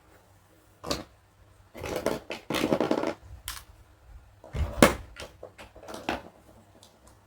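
Small plastic toy pieces being handled and set down: scattered clicks and taps, with a stretch of denser scraping and rattling about two seconds in.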